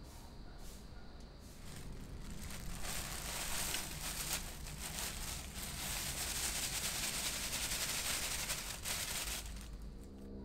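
Thin plastic bag crinkling and rustling as it is handled and pressed into a terracotta pot as a liner. It starts about three seconds in and stops near the end.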